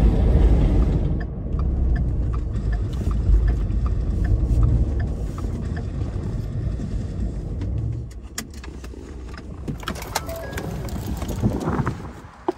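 Road and engine rumble inside a pickup truck's cabin while driving, dropping away about eight seconds in as the truck slows and stops. Then come scattered small clicks and handling noises, and a sharp click near the end as the truck door is worked.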